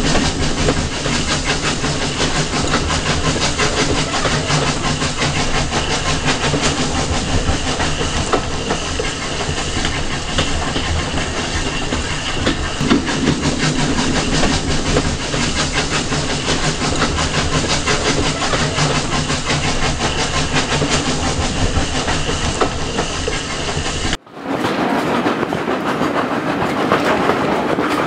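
A steam-hauled train's coaches running along the track, heard from a carriage window: a steady rumble and rush with the rhythmic clickety-clack of the wheels over the rail joints. About 24 seconds in, the sound cuts out briefly and resumes, brighter.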